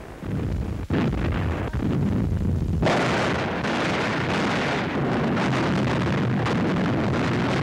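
Artillery firing: a sharp report about a second in, another a little later, then a heavy blast near three seconds that runs on as dense, continuous gunfire noise.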